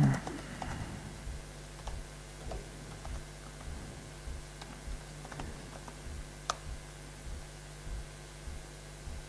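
Laptop keyboard typing: sparse, uneven keystrokes and clicks as a terminal command is entered, over a steady low electrical hum. A short low thump comes right at the start and is the loudest sound.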